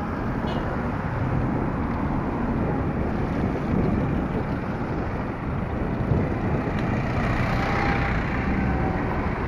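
Steady rumble of road and wind noise from a moving vehicle, with city street traffic around it.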